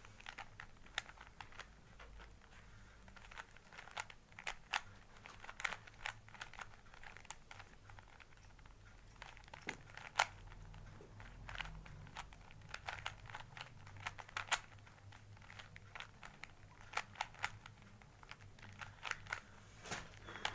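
A plastic Rubik's Cube being turned by hand during a solve: soft, irregular clicking and clacking of the layers, in runs of several clicks with short pauses between them.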